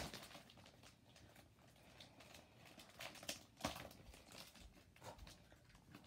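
Near silence: quiet room tone with a few faint, scattered clicks and rustles of handling, a small cluster of them a little past three seconds in.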